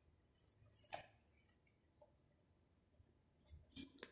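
Faint handling noises from an opened car CD receiver's metal chassis: a few light clicks and rubs as it is moved and set down, one near one second in and a couple near the end.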